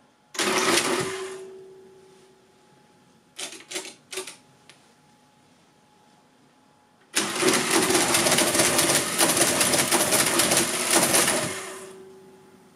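Marchant 8CMR electromechanical calculator running: a short burst of its motor-driven mechanism cycling just after a key press, three quick key clicks about three and a half seconds in, then about four seconds of rapid, dense clatter as it works through a calculation and shifts its carriage, fading out at the end.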